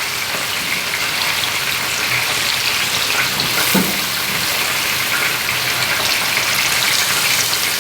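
Grouper fillet sizzling steadily in a frying pan, an even hiss with fine crackles.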